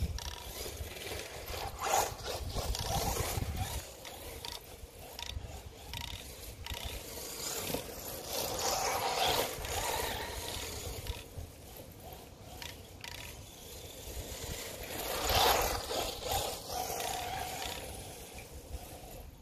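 Brushless electric motor and gear drivetrain of a 1/10-scale Himoto Katana truggy whirring as it drives over grass, rising and falling with throttle, loudest around the middle and again about three quarters in.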